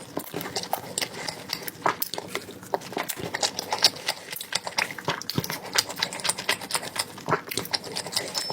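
Close-miked eating sounds: chewing and smacking with a steady stream of small, quick, wet clicks.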